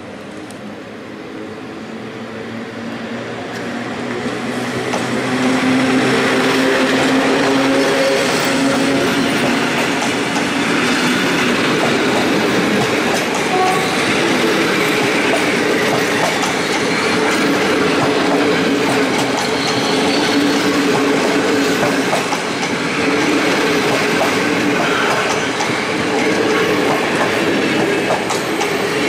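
A PKP EU07 electric locomotive hauling a passenger train pulls out and passes close by. It grows louder over the first few seconds as the locomotive approaches, then the coaches roll past with a steady rumble and clatter of wheels over the rail joints.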